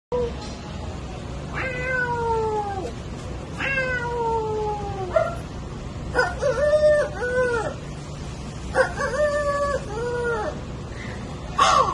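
A run of cat-like meows: two long calls sliding down in pitch, then two pairs of shorter meows, and a sharp, brief yowl near the end.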